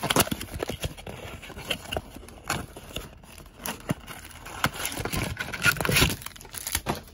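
Baseball cards being handled and set down on a stack: a run of quick taps, flicks and scrapes of card stock, busiest near the end.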